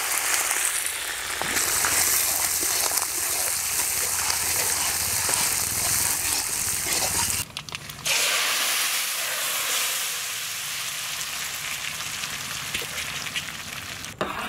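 Hot oil sizzling in a wok as dry red chillies and curry leaves fry for a sambar tempering. About halfway through the sizzle breaks off briefly, then it goes on as the hot tempering is poured into the pot of sambar.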